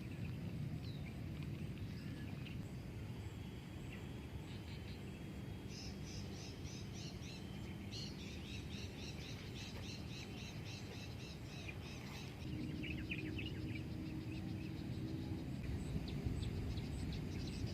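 Outdoor nature ambience: a steady low background rumble, with birds calling high above it. Mid-way comes a rapid run of high chirps, about four a second, for several seconds. A faint low hum joins shortly after.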